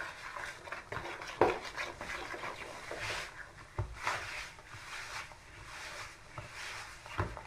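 Sticky yeasted bun dough being mixed by hand in a plastic bowl as flour is worked in: irregular squishing and scraping, with a few soft knocks against the bowl.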